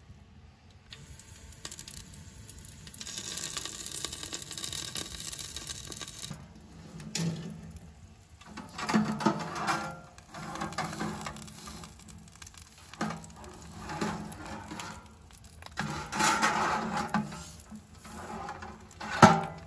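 Metal cookware and stove parts being handled, with scattered clinks and knocks, a sharp click near the end, and a stretch of hiss about three seconds in.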